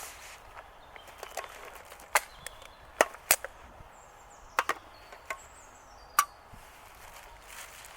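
Small pieces of wood being broken up for a fire: about seven sharp, irregularly spaced wooden cracks and knocks.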